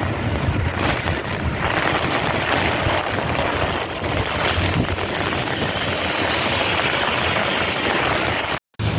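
Heavy rain pouring down steadily, with wind gusting against the microphone and a low rumble at the start. The sound cuts out briefly near the end.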